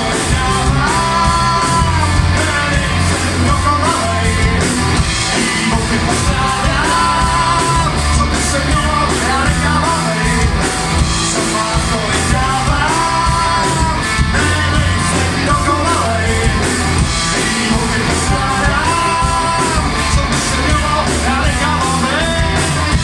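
Live rock band playing loud: electric guitar, electric bass and drum kit.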